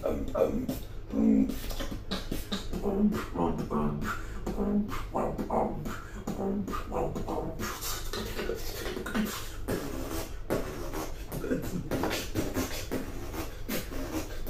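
Beatboxing: a person making drum sounds with the mouth, with a fast run of sharp clicks and snare-like hits over short low hums.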